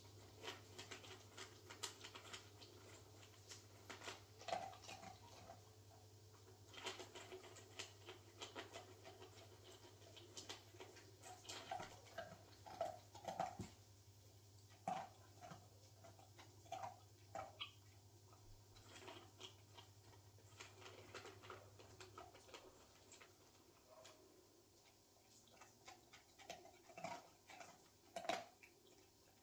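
A Borzoi eating from a stainless steel bowl: irregular clicks and taps as the dog's mouth works in the metal bowl. A low steady hum runs underneath and stops about three quarters of the way through.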